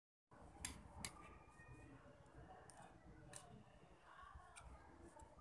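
Faint eating sounds over quiet room tone: a few sharp clicks of a metal spoon against a ceramic soup bowl and at the mouth while eating baso aci, the clearest two about a second in.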